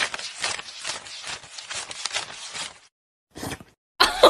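A thick stack of paper banknotes being flicked through by hand as they are counted: a fast run of crisp paper flicks for about three seconds, a brief pause, then one short flurry. A louder, voice-like sound starts right at the end.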